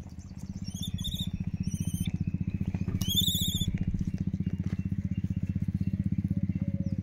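A small engine idling with a steady, fast, even putter, a little louder after the first second. High trilling bird calls come over it three times, the loudest about three seconds in.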